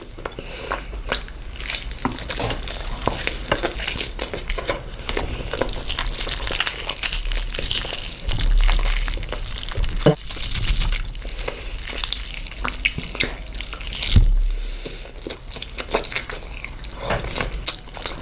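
Close-miked eating of rice and curry: wet chewing and many short, rapid mouth clicks, with a dull low thump about ten seconds in and again near fourteen seconds.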